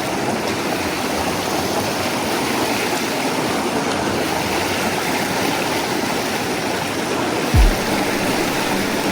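Steady rush of river current running over rocks. About seven and a half seconds in there is a brief low thump.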